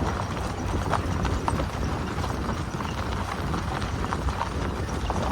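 Jeep WJ rolling slowly over a rough, washed-out dirt trail: a steady low rumble with irregular knocks and rattles as it jolts over the ruts and rocks.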